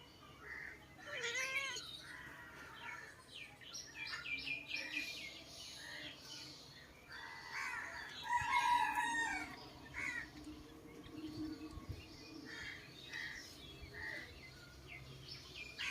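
Several birds singing and chirping, short varied calls and warbles overlapping one another, busiest and loudest about eight to nine seconds in.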